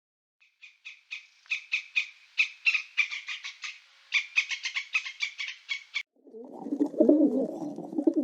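A fast series of short, sharp chirps, about four or five a second, from an animal that can't be named. About six seconds in, the chirps stop and pigeons start cooing.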